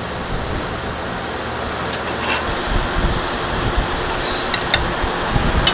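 Steady ventilation fan noise with a faint low hum. Near the end come a few light clinks of a metal spoon against a ceramic plate.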